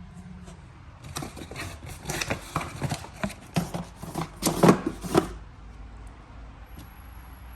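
Handling noise: a run of knocks, clicks and scrapes from about a second in to about five seconds in, the loudest near the middle, then only a low background.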